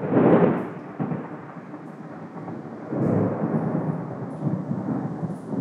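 Thunder rumbling, loudest right at the start and swelling again about three seconds in.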